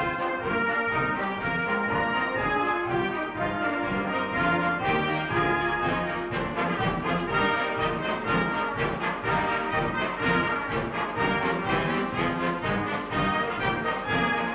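Brass band playing a tune together, cornets, tenor horns, baritones and euphoniums sounding in harmony.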